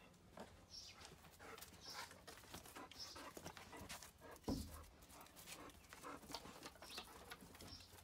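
Bernese Mountain Dog panting faintly, short breaths two or three times a second, with one soft thump about four and a half seconds in.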